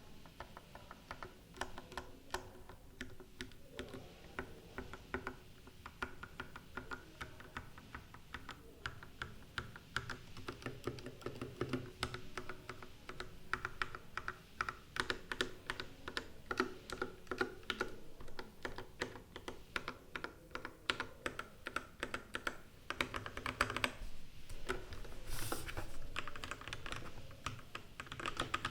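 Mechanical keyboard with Gateron Yellow linear switches being typed on continuously, a fast, dense run of keystroke clacks.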